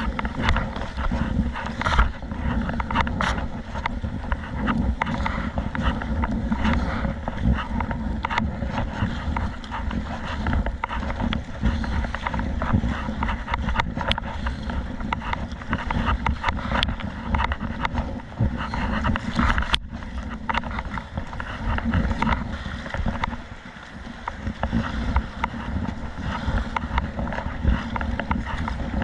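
Water splashing and sloshing around a kayak out in choppy waves, with wind buffeting the microphone in a steady low rumble.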